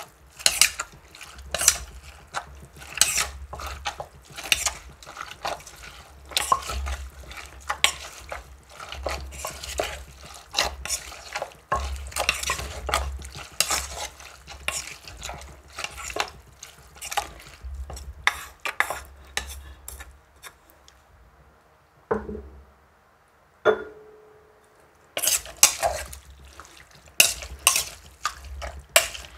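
Pestle and spoon pounding and tossing shredded bamboo shoots and herbs in a mortar to mix them: irregular knocks and clinks, a few a second, with a low thud under many of them. A lull of a few seconds about three quarters of the way through.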